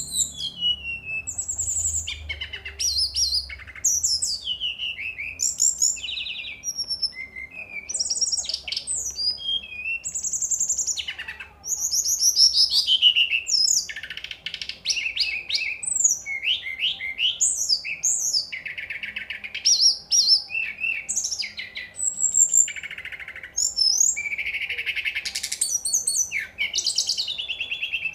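Caged brown-chested jungle flycatcher (Cyornis brunneatus) singing non-stop: a rapid run of varied whistled phrases, sweeping notes and fast trills following one another with barely a pause.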